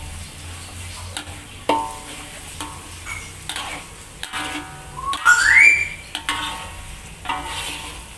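A metal spatula scrapes and knocks around an aluminium wok about once a second, each stroke ringing briefly, as rendang spice paste fries in oil with a light sizzle underneath. About five seconds in comes a louder rising squeal.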